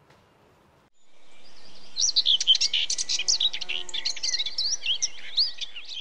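Birdsong: a dense chorus of quick chirps and whistled glides that fades in about a second in and then runs on loudly.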